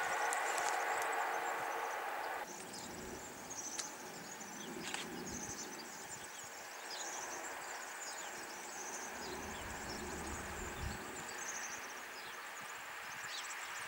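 Noise of a Frecciarossa ETR500 high-speed train receding along the line, cut off abruptly about two seconds in. After that, birds chirping in open country, with a gust of wind on the microphone a little past the middle.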